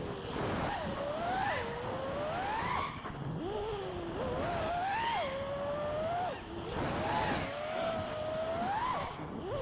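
FPV quadcopter's brushless motors (Axisflying 2207 1960kv on HQProp J37 propellers) whining. The pitch climbs and falls again and again as the throttle is pushed and chopped, with several sudden drops in pitch.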